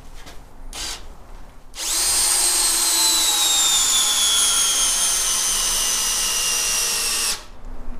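Bosch GSB 180-Li (GSB 18V-21) 18 V cordless drill driver in first gear driving a long lag screw into timber: the motor and gearbox whine starts about two seconds in and falls slowly in pitch as the screw goes deeper and the load builds, then cuts off suddenly near the end.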